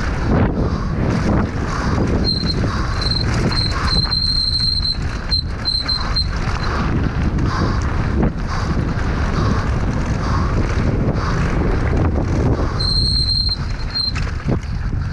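Wind buffeting the microphone of a helmet camera and a mountain bike's tyres rumbling and knocking over a dirt and stone trail at speed. A high, thin squeal, most likely the disc brakes under braking, cuts in and out for about four seconds starting two seconds in, and again for about a second near the end.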